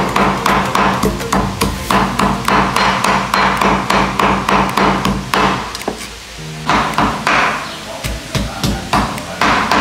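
Cleaver chopping rapidly on a wooden chopping board, several strikes a second, mincing pork and fish; the chopping pauses briefly a little past the middle, then resumes.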